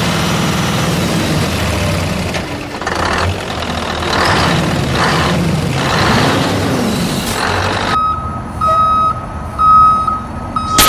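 Rumbling vehicle noise, then from about eight seconds in a reversing alarm beeping at one steady pitch, several beeps in a row.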